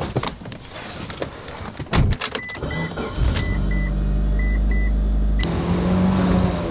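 Car sounds: a few knocks and clicks, then a car's chime beeping in short pairs while a low engine rumble comes in about three seconds in. Near the end it changes abruptly to steady engine hum and road noise heard inside a moving car.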